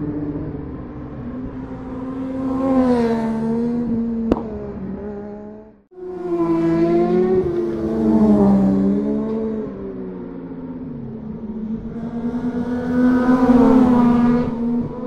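Sport motorcycles passing at speed on a race circuit, their engine notes swelling and falling in pitch as each one goes by, with several passes in all. There is a sharp click about four seconds in, and the sound drops out for a moment just before the halfway point.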